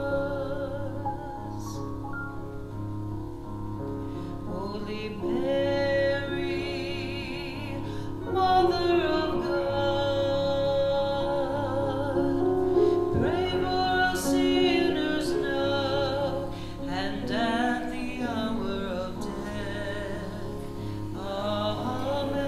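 A communion hymn: a voice singing slow, held phrases with vibrato over a steady instrumental accompaniment, pausing briefly between phrases.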